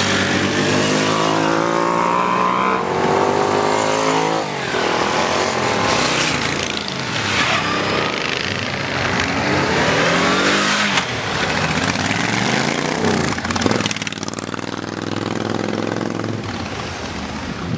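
Motorcycles riding past one after another, each engine's note rising and then falling as it goes by, about four pass-bys in all.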